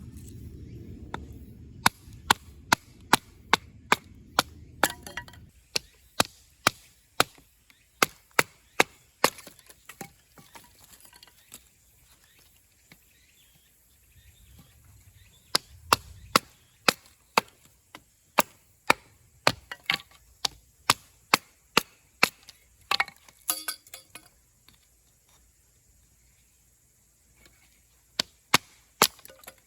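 Repeated sharp chopping strikes on wood, about two a second, in runs broken by short pauses.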